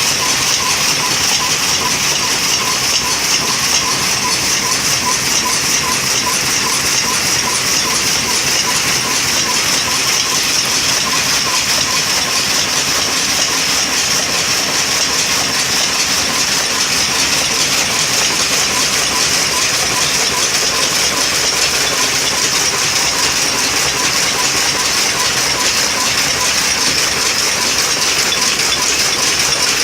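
Power loom running: a loud, steady, fast mechanical clatter with no pause.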